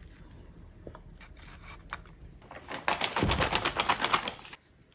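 A few faint handling clicks, then about three seconds in, soy milk poured from a carton into a ceramic mug: a loud, dense splashing pour lasting nearly two seconds that cuts off suddenly.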